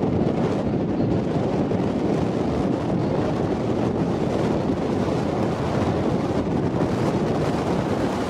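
Strong wind buffeting the microphone: a loud, steady noise weighted toward the low end, with nothing else standing out.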